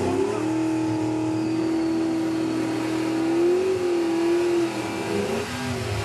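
Fox-body Ford Mustang's engine held at high revs during a burnout, the rear tyres spinning and smoking. The note stays steady for about four seconds, rises slightly, then drops off to lower revs near the end.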